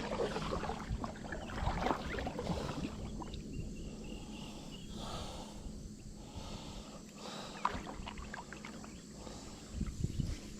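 Scattered light knocks and clicks of gear being handled in a small fishing boat, over a low rumble and a faint steady hum that fades out about halfway through.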